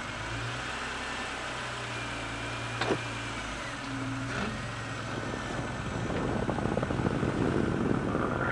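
Car engine running at idle, with one sharp click about three seconds in. From about halfway the car pulls away, driving out over a carpet remnant laid under the tire, and a rough, growing rumble of tires and engine under load builds toward the end.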